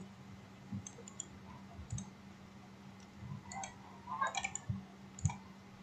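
A few faint, scattered computer mouse clicks, with a small cluster of them about four seconds in, over a low steady electrical hum.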